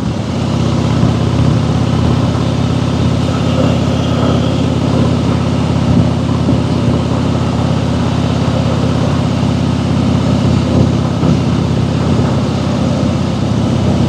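Harley-Davidson Fat Boy's V-twin engine running steadily as the motorcycle cruises, loud and low-pitched with an even tone throughout.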